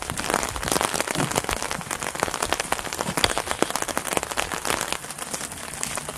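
Steady rain falling, with many sharp close drop hits on an umbrella overhead.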